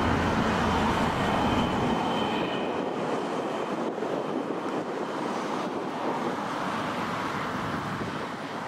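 Jet aircraft engines roaring as the aircraft passes, with a thin high whine early on; the deep rumble drops away about two seconds in and the roar slowly fades.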